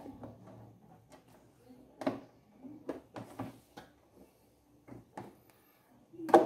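Scattered light knocks and clicks of an LCD TV panel being set down and seated into the TV's frame by hand. There is a knock about two seconds in, a short cluster a second later, and the sharpest knock near the end.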